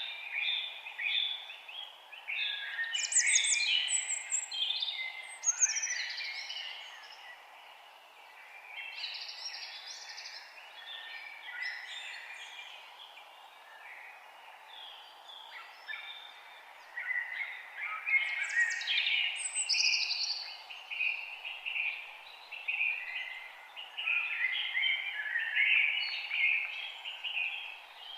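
Songbirds chirping and singing, many short calls and trills overlapping, over a faint steady background hiss. The calling is busiest in the first several seconds and again over the last ten, thinner in between.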